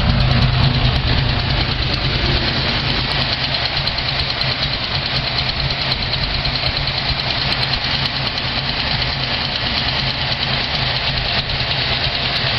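Carbureted car engine idling steadily while it warms up after a cold start, just brought back to life after months of sitting unused.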